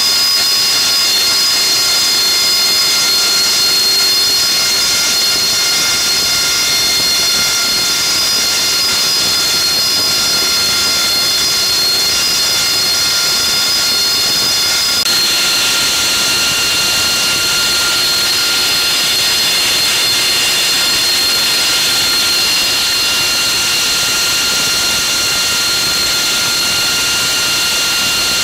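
AV-8B Harrier jump jets' Pegasus turbofan engines running on the deck: a steady high-pitched whine of several tones over a rushing hiss. The pitch of the whine shifts about fifteen seconds in.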